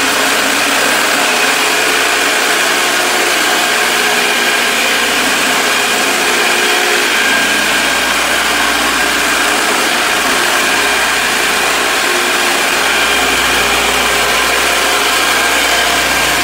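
Electric floor scraper running steadily, its blade shearing glued vinyl floor covering up off the concrete.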